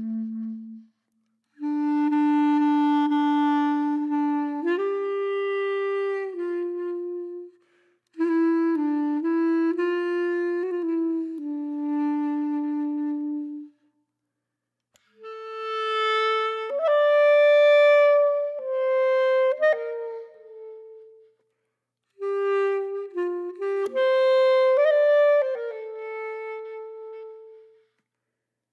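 Background music: a slow solo melody on a wind instrument, played in several phrases with short silences between them.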